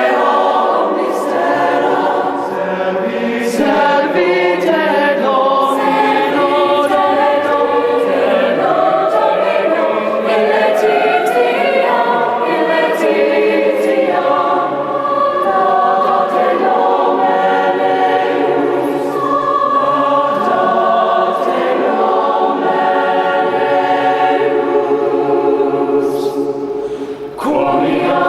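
A choir singing in harmony, with long held chords and a brief drop in level about a second before the end.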